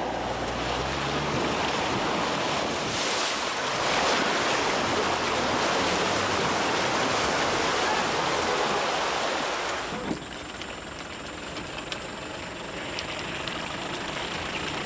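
Water rushing and splashing as a four-wheel-drive vehicle pushes through a flooded track, with its engine running underneath. About ten seconds in the sound cuts to a quieter, thinner wash of water.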